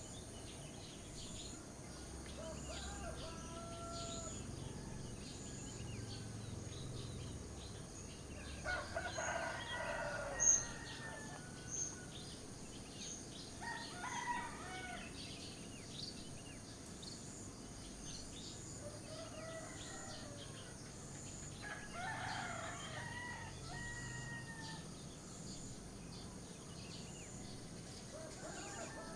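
Roosters crowing, three prominent crows about nine, fourteen and twenty-two seconds in, with fainter crows between them. Small birds chirp throughout over a low rustle of wind in grass, and a brief sharp high-pitched sound comes about ten seconds in.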